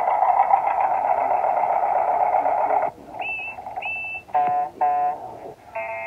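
A run of toy-train-show vehicle sound effects: a rough, buzzing engine-like noise for about three seconds, then two short high whistle toots that slide up into pitch, two horn honks, and another horn honk near the end.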